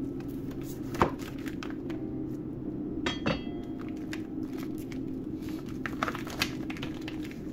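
Chef's knife cutting through a slab of partly frozen liver and knocking on a plastic cutting board: a sharp click about a second in and a cluster of clicks around three seconds. Then hands pull the cut pieces apart with light crinkling and clinks of the paper wrapping and the knife.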